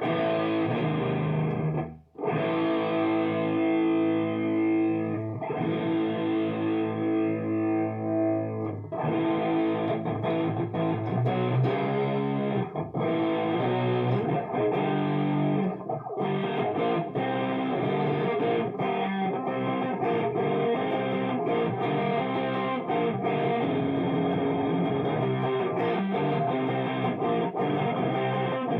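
Electric guitar played through a homemade guitar amplifier. Held chords ring out for the first several seconds, broken by a short gap about two seconds in, then give way to quicker picked notes and chord changes.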